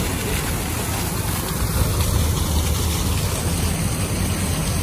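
Waterfall pouring onto rocks and spraying into a pool: a steady rushing noise with a strong low rumble.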